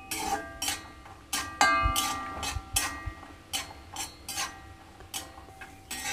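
Metal spatula stirring cashews roasting in ghee in a metal kadai, scraping and knocking against the pan: a string of sharp clinks, several ringing briefly.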